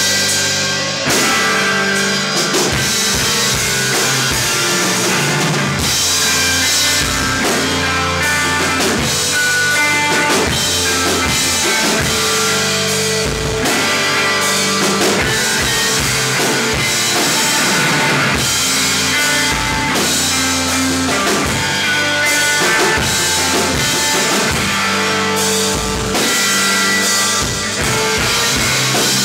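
Rock band playing loudly and steadily: drum kit with cymbals, and guitar.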